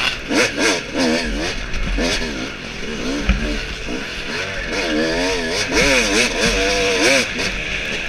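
Yamaha dirt bike engine revving up and down over and over as the throttle is opened and closed, its pitch rising and falling several times a second. A single sharp knock comes about three seconds in.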